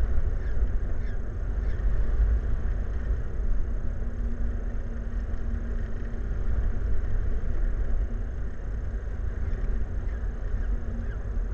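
Steady low outdoor rumble, with faint short bird chirps now and then and a faint steady hum from about four seconds in.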